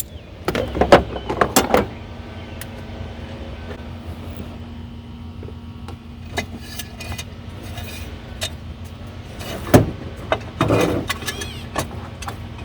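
Metal hand tools and parts clinking and rattling in two short clusters, about half a second in and again around ten seconds in, while a supercharger pipe coupler is worked into place, over a steady low hum.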